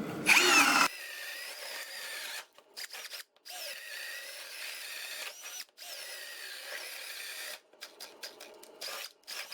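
Ryobi HP brushless cordless drill spinning a 1-inch self-feeding spade bit as it bores holes one after another. It revs up loudly at the start, then runs at a lower level with several short breaks between holes.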